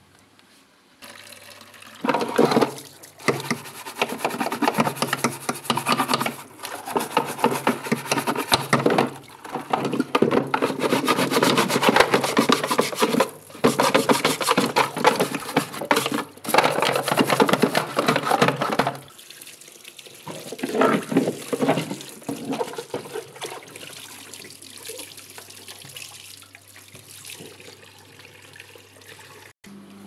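Tap water running and splashing over a plastic washing-machine detergent drawer as it is rinsed clean. The water runs in several long spells with short breaks, stops about two-thirds of the way through, and a few fainter splashes follow.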